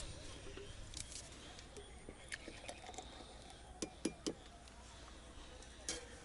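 Several light clinks and taps of tableware being handled, spread out one at a time, with a cluster of three about four seconds in.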